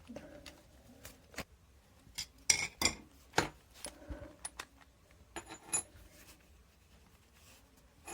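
Hand-held metal tools and drill parts clinking, tapping and knocking as they are handled, with a cluster of louder knocks about two and a half to three and a half seconds in and a couple of short metallic rings near the end.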